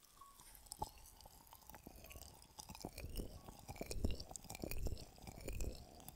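Close-miked crackly scratching with soft irregular knocks and taps, as ASMR ear-massage tools rub and tap on a microphone.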